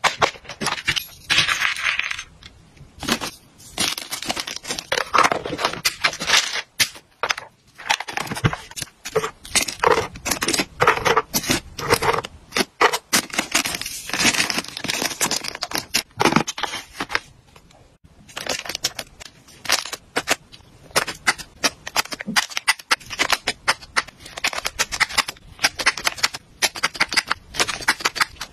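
Clear plastic bags crinkling and small dry hamster treats clicking and rattling against plastic as they are handled and packed into bags and containers, a dense run of small clicks and rustles with brief pauses.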